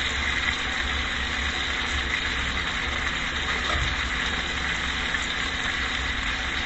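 Rib-eye steak frying in a skillet with butter, onions and mushrooms: a steady, even sizzle over a low, steady hum.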